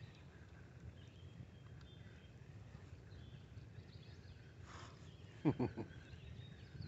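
Riverbank outdoor ambience: a low steady rumble with faint bird calls. About five and a half seconds in comes a short run of falling animal calls.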